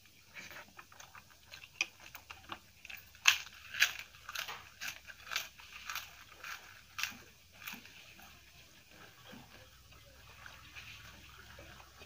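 Crisp papadam bitten and chewed close to the microphone: a run of sharp crunches, loudest a few seconds in, thinning out to faint chewing near the end.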